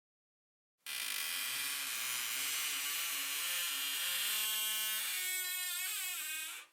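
Squeaky door hinge creaking in one long, drawn-out squeal as the door swings slowly. It starts just under a second in, and the pitch wavers and climbs over the last couple of seconds before it stops.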